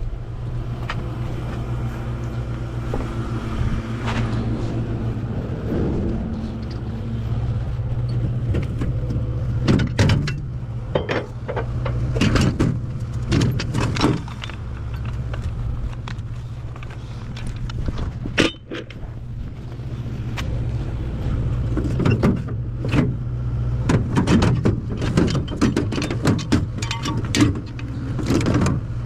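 A vehicle engine idling steadily, with scattered clicks and knocks of handling and mechanisms, most in a busy stretch about a third of the way in and again near the end.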